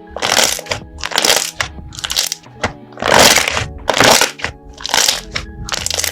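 Crunchy slime being squeezed and pressed, giving loud crackling crunches about once a second, over background music.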